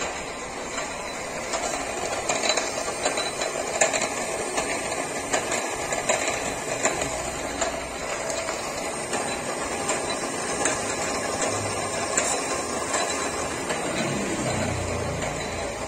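Electric geared travel motors of a 3-ton Mitsubishi crane end carriage running, the gearing turning with a steady mechanical rattle and a stream of small clicks.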